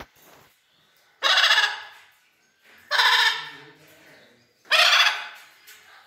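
Blue-and-yellow macaw giving three loud, harsh squawks, each about half a second long and a bit under two seconds apart.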